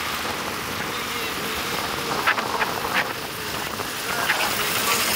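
Wind rushing over the microphone with road and traffic noise while riding an electric scooter, which adds almost no motor sound of its own. A few short, sharp high sounds stand out about two to three seconds in.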